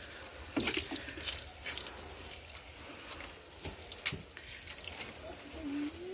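Water spraying from a plastic watering can's rose onto potted desert rose seedlings, their leaves and soil: a steady shower with a few sharp knocks.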